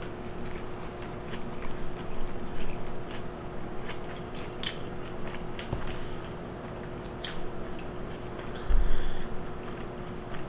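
Chewing a mouthful of Big Mac burger: scattered wet mouth clicks and smacks over a faint steady hum, with a low thump about nine seconds in.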